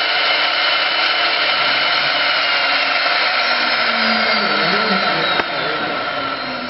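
CNC wood lathe with a high-speed carving spindle running, a loud steady motor whine. Its pitch sags slightly from about halfway through, and the level drops suddenly about five seconds in.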